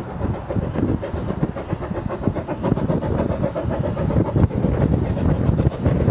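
Steam train running on the line, its wheels clattering over the rails in a dense, busy run of knocks.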